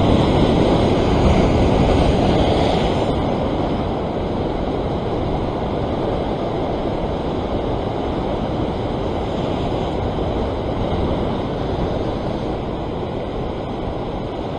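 Ocean surf breaking against a rock ledge: a wave crashes into spray at the start, loudest for the first few seconds, then a steady wash of foaming water over the rocks.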